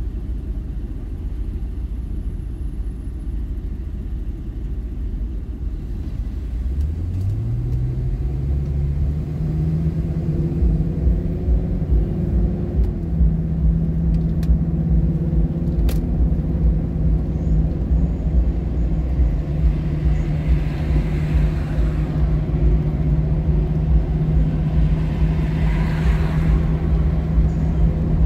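Ford Excursion's 6.8-litre V10 engine on the move. About seven seconds in, the engine note rises in pitch as the truck accelerates, then holds steady over a low road rumble.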